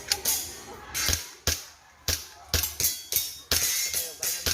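Background music with a strong percussive beat, sharp strokes about twice a second.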